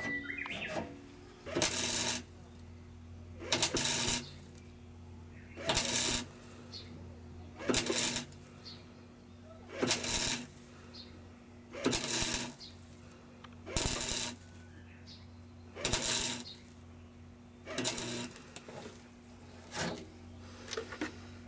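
A welder laying a series of short tack welds on car body panels, each burst of crackle lasting about half a second and coming about every two seconds, with a steady low hum underneath.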